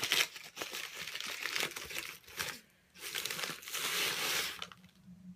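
Crinkly wrapping being crumpled and pulled open by hand, crackling in irregular bursts with a brief pause about two and a half seconds in.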